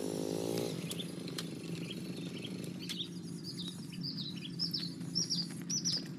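Small birds chirping: a run of short, high, down-slurred chirps that starts about halfway through and grows louder near the end, over a steady low hum.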